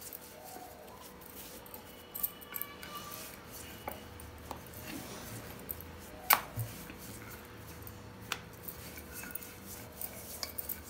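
Rolling pin working a round of wheat dough on a granite counter: soft rolling with scattered light clicks and knocks of the pin and dough on the stone, and the bangles on the wrists clinking now and then. The sharpest click comes a little past the middle.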